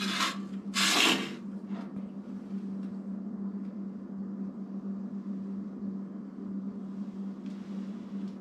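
Metal ash scoop scraping across the floor of a wood stove's firebox, two scrapes within the first second and a half, the second the louder, then faint light scrapes and taps as ash is lifted out and eased into a stainless steel pan, over a steady low hum.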